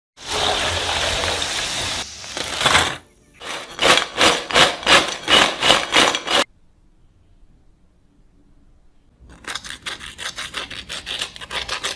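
Potato fries deep-frying in hot oil, a steady sizzle for about three seconds. Then a run of rhythmic scraping strokes, about three a second, as fries are tossed in a glass bowl. After a lull, quicker and fainter crisp rustling comes near the end as the fried fries are handled in a glass dish.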